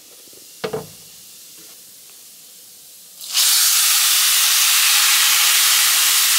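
Blended tomato, water, garlic and onion liquid poured into a hot skillet of browned rice, sizzling with a loud steady hiss that starts suddenly about halfway through. Before that there is a single short knock.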